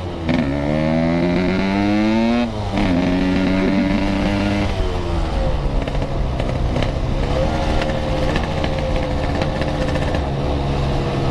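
Yamaha RX King 135cc single-cylinder two-stroke motorcycle with a packing-power exhaust accelerating hard through the gears. The engine note climbs and drops back at a shift just after the start and again about two and a half seconds in, then holds a steady pitch at speed.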